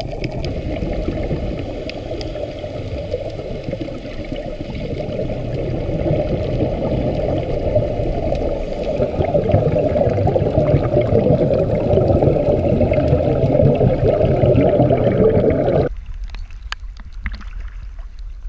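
Heavy rain pelting the sea surface, heard from just below it as a dense, muffled crackling rush that grows louder during the ascent. Near the end it cuts off suddenly as the camera breaks the surface, leaving quieter splashes and slapping of choppy water.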